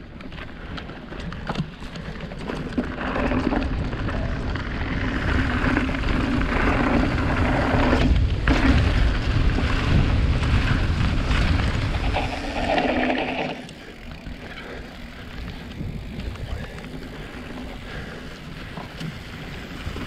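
Mountain bike riding downhill over grass and then gravel: wind buffeting the camera microphone and tyres rumbling over the ground. It is loudest through the middle and eases off about fourteen seconds in.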